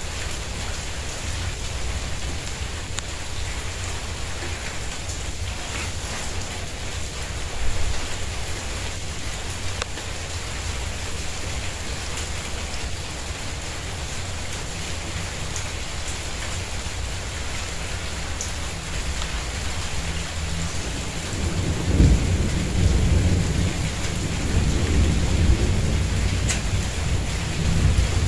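Steady rain falling on a tiled courtyard and plants. About two-thirds of the way through, a low rumble of thunder builds and carries on to the end.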